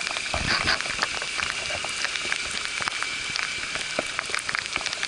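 Heavy rain striking a camera's protective case close to the microphone: a dense patter of sharp drop hits over a steady hiss.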